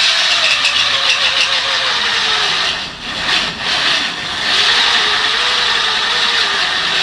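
Electric angle grinder running at full speed. Its motor whine wavers slightly, over a loud hiss, with brief drops in level about three to four seconds in.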